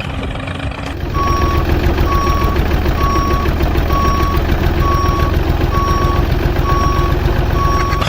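Vehicle reversing alarm beeping steadily, about one beep a second, over a running engine; both start suddenly about a second in.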